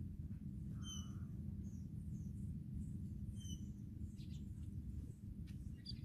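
Steady low rumble of wind on the microphone, with birds chirping over it: two clear short chirp calls, about a second in and again about three and a half seconds in, and fainter calls near the end.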